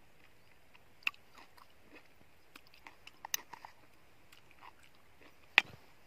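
A person chewing cherries off a spoon: soft wet mouth clicks and smacks scattered through. About five and a half seconds in, one sharp click as a metal spoon is set down in a plastic tub.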